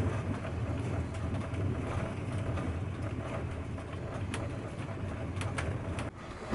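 Sleeper train carriage in motion, heard from inside a compartment: a steady low rumble from the running train, with a few sharp clicks and knocks, a cluster of them near the end. The sound breaks off briefly about six seconds in.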